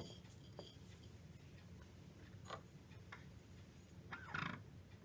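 Fingers rubbing and scraping a moist spice-powder paste against a ceramic plate: a few faint, brief strokes over a low steady hum, the loudest a little after four seconds in.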